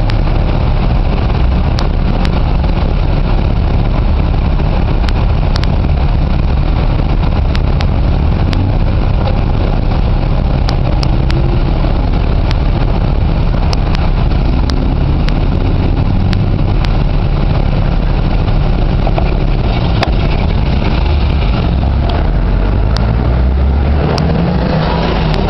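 Car engines idling in stopped traffic close around the bicycle, a loud, steady low rumble with scattered faint clicks. Near the end an engine revs up as the traffic pulls away.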